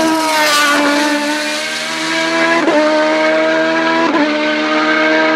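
A 3.5-litre BMW 320 hillclimb race car's engine running hard at high revs. The note dips in the first second, then holds and climbs slightly, with brief breaks in the note about two and a half and four seconds in.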